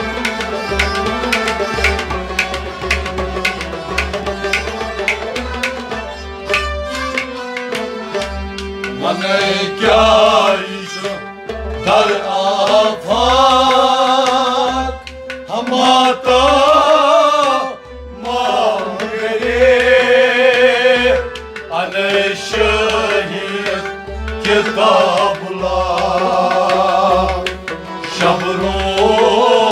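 Kashmiri Sufiyana music: harmonium and rabab playing over a steady drum beat. From about nine seconds in a man sings long phrases with a wavering vibrato over the instruments.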